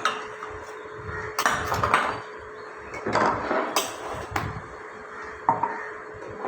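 Hand lemon squeezer being worked to squeeze a lemon: a few irregular clatters and clicks of kitchen utensils, in clusters about a second apart.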